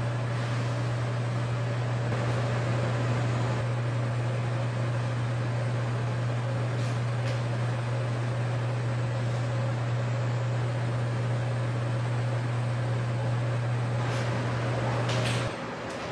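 A steady low machine hum with a light hiss over it, which cuts off suddenly near the end after a few faint clicks.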